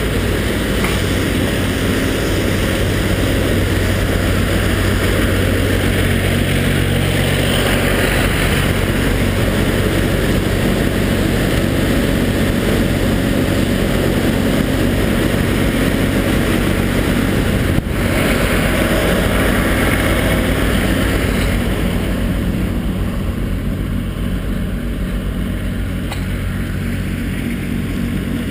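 A steady engine drone with a constant low hum under a rushing noise, broken once by a sharp click about 18 seconds in; it eases off a little in the last few seconds.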